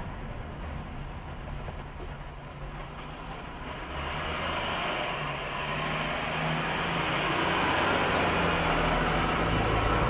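A fire truck's engine and tyre noise grow louder from about four seconds in as the truck approaches and drives past, heard from inside a moving car. No siren is sounding.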